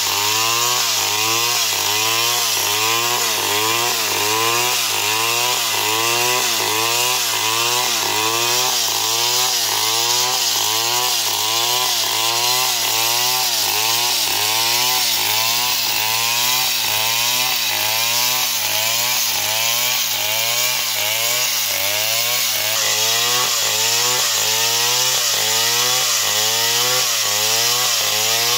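Stihl chainsaw running under load as its long bar cuts through a palm trunk, the engine pitch rising and falling in a steady rhythm a little under twice a second.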